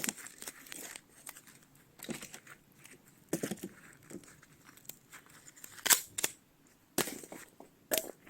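Firewood being split into kindling: sharp knocks of the blade striking and wood cracking apart, with softer crackling of split pieces between them. Three loud strikes come close together near the end.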